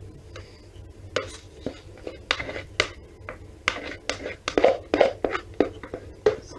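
Spatula scraping and knocking around the inside of a plastic jug to get the last of the soap batter out: a quick, irregular run of scrapes and taps starting about a second in.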